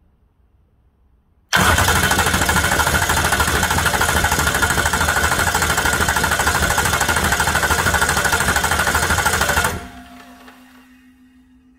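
Starter motor cranking a 6.0 Powerstroke V8 diesel over at a steady speed for about eight seconds, starting suddenly about a second and a half in, then cutting off and the engine coasting to a stop near the end.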